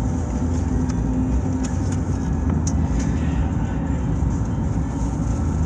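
Steady low rumble of a running car, with a few faint clicks about two and three seconds in.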